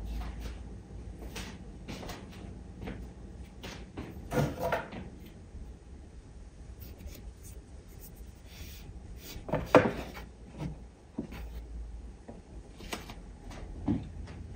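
Household cleaning sounds: rubbing and wiping on wooden furniture, with scattered light knocks of objects being handled and set down. Two louder clatters come about four and a half and ten seconds in.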